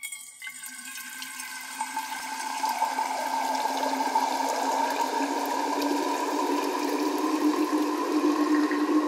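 Water poured in a steady stream from one stainless-steel thermos into another, splashing and ringing inside the metal flask. The tone rises slightly and the sound grows louder as the flask fills, smeared with echoes from a multi-tap delay.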